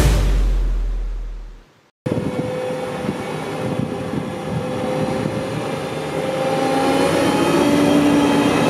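Background music fades out, and after a brief gap a Krone BiG M 450 self-propelled mower is heard running as it drives along a farm track, a steady whine over the engine, growing louder near the end as it comes closer.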